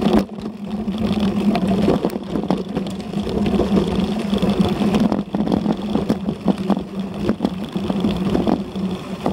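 Specialized Diverge carbon gravel bike rolling fast over a rough dirt-and-gravel track, heard through a bike-mounted camera: tyre and wind rumble with a steady low hum, broken by frequent knocks and rattles over bumps.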